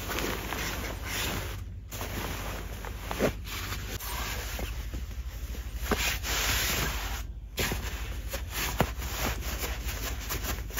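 Cloth bedding rustling and scraping as a hand rubs, pats and handles a duvet and a pillow in its cover, with a few short soft knocks, over a steady low hum.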